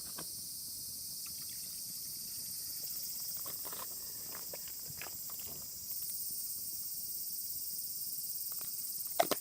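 Wood bonfire crackling with scattered small pops over a steady high-pitched hiss that grows slightly louder about six seconds in, and one sharp, louder pop near the end.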